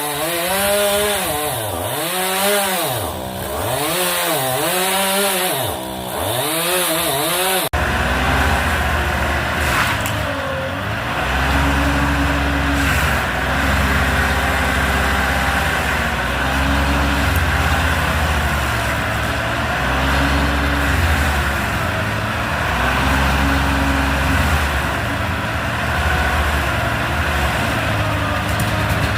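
Chainsaw revving up and down about every second and a half as it cuts into the red oak. About eight seconds in, an abrupt switch to a steady low drone of a heavy engine, with a higher whine that rises and fades every couple of seconds.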